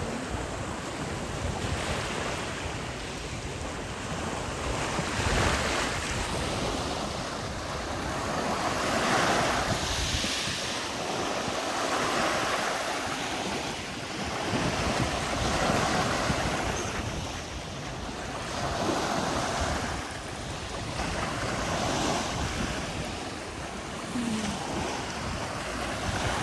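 Sea waves washing onto the beach, swelling and falling away about every three to four seconds, with wind rumbling on the microphone.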